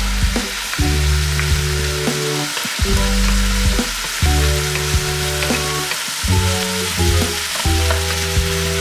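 Food sizzling and frying in a pan as it is stirred, a steady hiss with small crackles. Background music with slow sustained chords plays under it.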